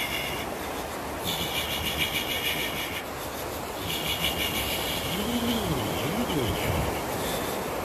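A man making a high-pitched, fast-pulsing buzz with his voice and breath in three bursts with short pauses between, a breathing exercise meant to set the body vibrating. A steady rushing background noise runs underneath.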